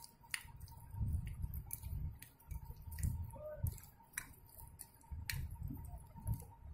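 A spoon stirring a wet mix of chopped tomatoes and green chilli in a glass bowl: irregular clinks of the spoon against the glass, roughly one or two a second, over soft wet low thuds.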